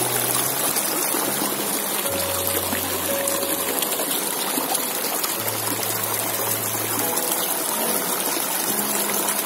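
Sulfurous crater stream rushing and splashing over rocks, a steady hiss of running water. Background music with slow held bass notes plays underneath.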